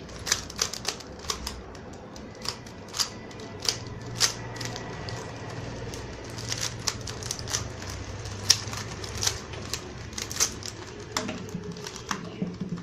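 Rubik's cube being scrambled: its plastic layers twisted in quick turns, giving an irregular run of sharp clicks, two or three a second.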